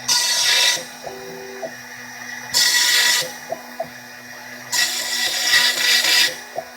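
Small CNC router milling MDF: the cutter bites into the board in three loud bursts of cutting noise, the last one the longest. In between, a steady low hum runs on and short whining tones start and stop as the axis stepper motors move the gantry.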